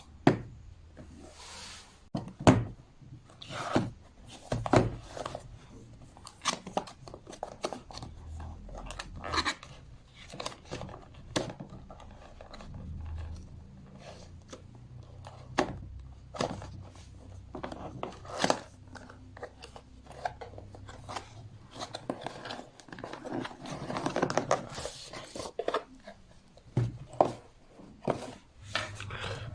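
A small product box being opened and its packaging handled by hand: irregular clicks and knocks with stretches of rustling and scraping.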